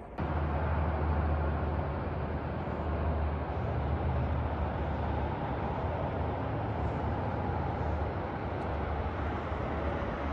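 Steady low rumble and road noise of a moving vehicle, cutting in abruptly right at the start.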